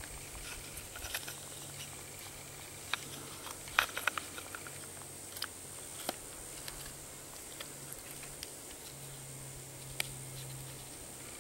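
Scattered small clicks and light knocks of wood being handled: hand-made wooden pliers with a wedge and root-cordage binding turned over in the hands, with a few louder clicks around four and six seconds in and one near ten seconds.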